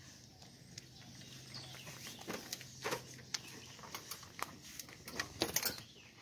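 Goats chewing cookies and smacking their lips close by: a string of sharp crunches and clicks, busiest about two and a half seconds in and again near the end.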